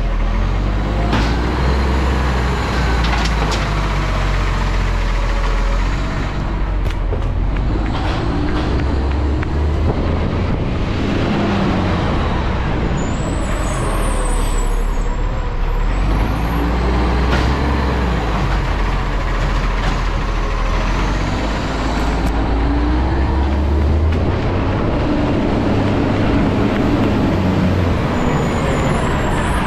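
Garbage truck's diesel engine running, its pitch rising and falling as it revs up and slows down. A few sharp clicks, and a short high hiss about thirteen seconds in and again near the end.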